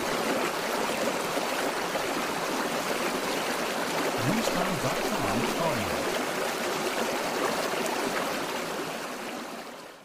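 Running water with a steady rushing sound, fading out near the end.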